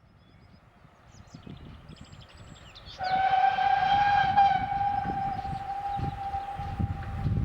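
A locomotive whistle sounds about three seconds in, one long steady single-note blast held for several seconds, over a low rumble of the train that grows louder.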